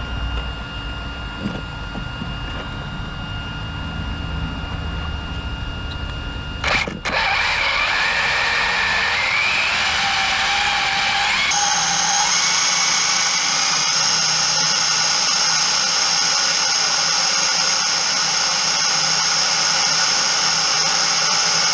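Brushless electric motor of an Arrma Typhon TLR 1/8 RC buggy whining as its tyres spin in place for a burnout. A fainter steady whine runs for about seven seconds; after a sharp knock the whine climbs in pitch over a few seconds, then holds at a loud, steady high pitch.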